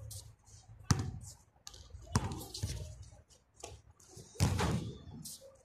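Basketball bouncing on a concrete court: several separate sharp thuds a second or so apart, the loudest and longest-ringing about four and a half seconds in.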